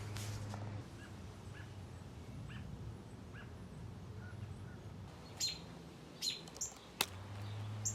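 Small bird chirping: a few faint short chirps at first, then louder, sharper chirps in the second half, with a single click about seven seconds in, over a steady low hum.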